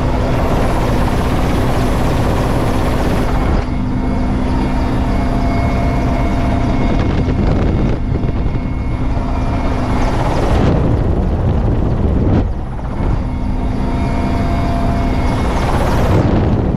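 Helicopter turbine engines and rotor running steadily, heard from inside the cabin with the side door open: a loud, continuous din with a low steady hum over it.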